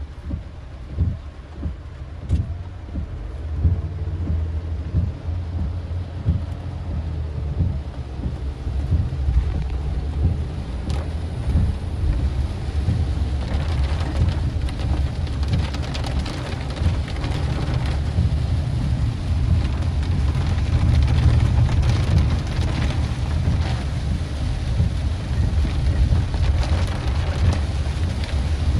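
Rain pattering on a car's windshield and roof, heard from inside the moving car over a steady low rumble of car and road. The rain grows denser and louder about halfway through.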